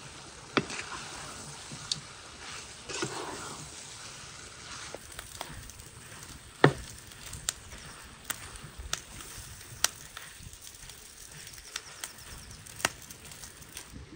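Diced meat and peppers sizzling in a granite-coated frying pan while a wooden spatula stirs them, with scattered sharp clicks and knocks of the spatula against the pan, the loudest about halfway.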